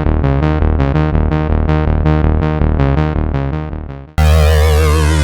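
Korg Polysix analog synthesizer playing a fast repeating pattern of short plucked notes, about five a second, that fades out about four seconds in. A sustained chord patch with a wavering, swirling modulation then starts abruptly near the end.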